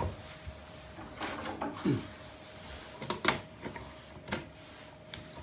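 A series of sharp knocks and clicks of wooden panels and fittings being handled, with a short falling creak about two seconds in, over a faint steady hum.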